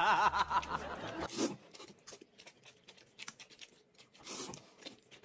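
Noodles being slurped and chewed, with faint scattered clicks and a couple of short slurps. A snatch of music fades out in the first second or so.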